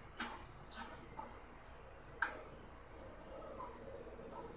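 Light metallic clicks and taps of a screwdriver working on the terminals and wiring inside a rice cooker's base, with one sharper click about two seconds in. A faint steady high-pitched tone sounds in the background from about then on.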